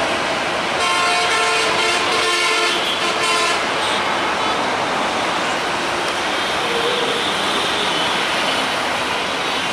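A diesel locomotive's horn sounds for about three seconds, starting about a second in, over the steady rumble and clatter of an express train rolling past. After the horn stops, the noise of the coaches' wheels on the track carries on.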